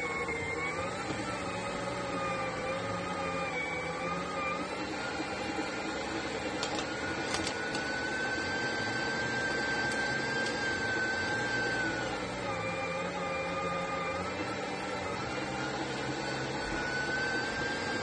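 SHANBEN electric meat grinder's motor running steadily while mincing red chili peppers, its whine drifting up and down in pitch as the chilies are fed in, with a couple of light clicks about halfway through.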